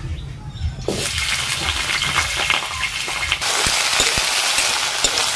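Sliced potatoes frying in hot oil in an iron kadhai: a loud sizzle starts suddenly about a second in and gets louder partway through. A metal spatula stirring them scrapes and clicks against the pan.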